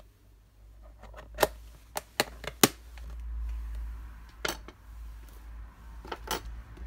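Clear plastic tarantula enclosures being handled and set down, giving a scattered series of sharp plastic clicks and knocks over a low handling rumble.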